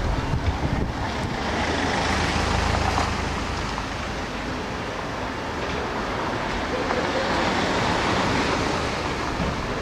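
Steady outdoor street noise: a wash of traffic sound, with wind buffeting the microphone as a low rumble during the first few seconds.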